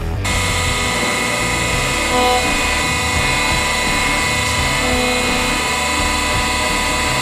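Hydraulic press running as its ram descends: the pump and motor give a steady whine made of several held tones, starting abruptly just after the start. A lower hum joins about five seconds in.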